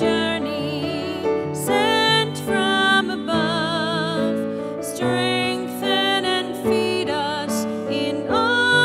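A church hymn sung by a single voice with wide vibrato, accompanied by piano.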